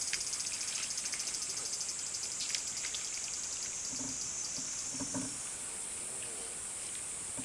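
A chorus of summer insects chirring, a steady high-pitched buzz made of rapid pulses. A few short, faint low sounds come through about four and five seconds in.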